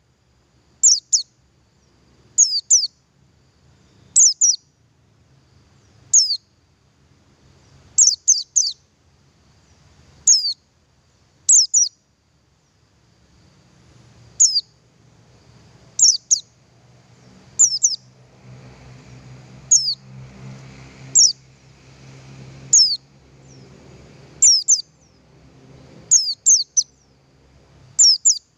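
Male pleci buxtoni white-eye calling: short, high, downward-sliding chirps, single or in quick pairs, repeated every second or two. A faint low hum rises under the calls in the second half.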